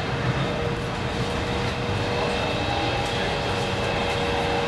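Helsinki Metro M100 train running at speed, heard from inside the carriage: a steady rumble of wheels on rail with a steady whine held on one pitch.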